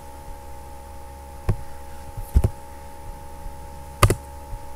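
Three separate computer keyboard keystrokes, sharp clicks spaced one to two seconds apart, over a steady electrical hum.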